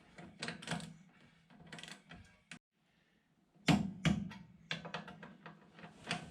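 Scattered clicks and knocks of hand tools and metal parts being handled during brake and axle assembly. They stop for about a second, then a sharper knock comes near the middle, followed by more clattering.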